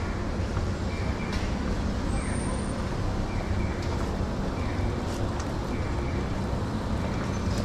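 City street traffic: a steady rumble of passing road vehicles, with a faint high chirp repeating about once a second.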